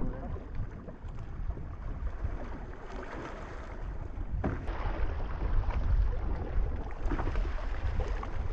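Kayak paddling on choppy water: paddle blades dipping and splashing, with water sloshing against the hull. Wind buffets the microphone throughout.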